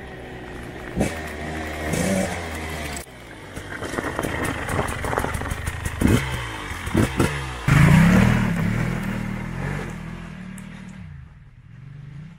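Off-road motorcycle engines revving and riding past, cut between several shots, one of them a Husqvarna TE300i two-stroke enduro bike. Quick rev blips come a little past the middle, then a louder engine pass fades out near the end.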